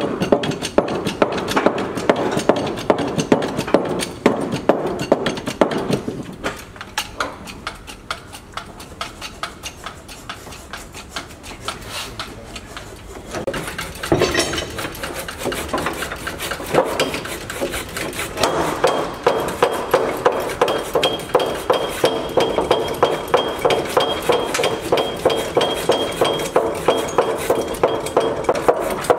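Mallet or hammer blows on wooden hull planking, about three a second in a steady rhythm, as shipwrights drive a steamed 2-inch plank into place. The knocking eases off for a few seconds and comes back louder.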